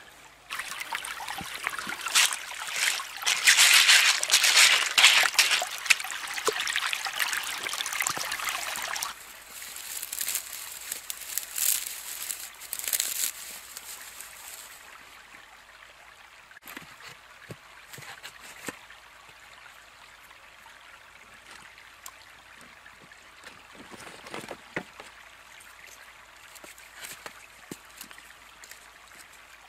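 Water trickling and splashing for the first several seconds as a mesh bag of clams is set into the creek. It then drops to a faint, steady stream sound with scattered small clicks and knocks of sticks being laid in a fire pit.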